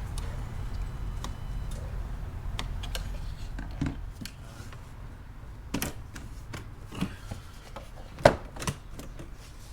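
Scattered clicks and knocks of tools and plastic shifter parts being handled while a manual gear shifter is taken apart, the loudest a sharp knock about eight seconds in. A low hum fades out about four seconds in.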